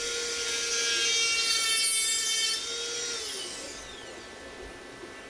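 Dremel rotary tool running at a steady high whine while cutting the plastic spout tip of a gear-oil bottle. About three seconds in it is switched off, and the whine falls away as it spins down.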